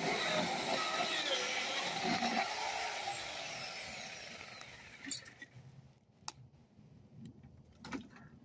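Chainsaw running and cutting into a fallen tree limb, its high-pitched whine fading away over the first five seconds. A few sharp knocks follow near the end.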